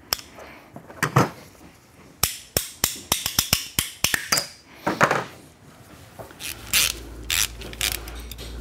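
Socket ratchet working bolts on a metal exhaust header: ratchet clicks and metal clinks, with a quick, even run of clicks about two seconds in.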